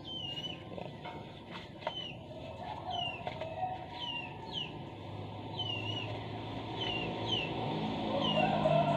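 A bird calling over and over, a short curved chirp repeated about one and a half times a second, with a few faint clicks about two seconds in and a low hum growing near the end.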